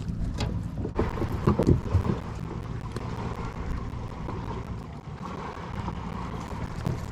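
Wind rumbling on the microphone out on open water, with a few knocks about a second and a half in.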